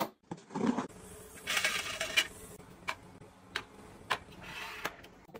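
Household gadgets being handled: a few short sliding rushes and several sharp, separate clicks and taps.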